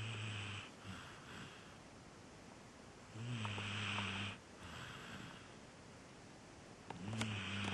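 A sleeping dog snoring, about one snore every three and a half seconds. Each snore is a low buzzing drone followed by a softer breath.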